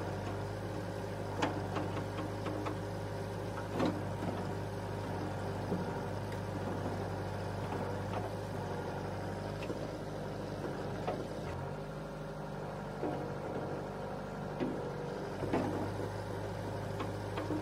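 Small electric motors of toy construction machines humming steadily, the pitch stepping up about two-thirds of the way through, with scattered clicks and knocks of plastic parts.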